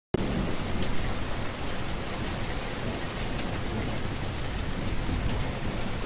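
Steady rain falling, an even hiss with scattered individual drop hits, which cuts off abruptly near the end.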